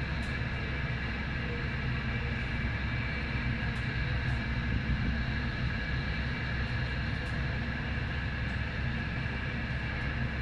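Aircraft turbine engines running steadily: a low rumble under an even, high whine that does not change.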